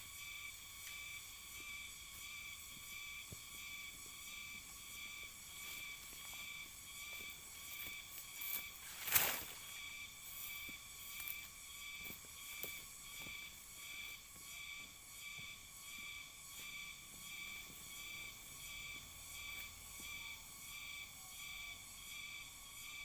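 Steady, evenly pulsing chirring of insects in a garden. About nine seconds in, a loud rustling thump stands out among lighter rustles, as a bundled pineapple plant is set down on dry leaf litter.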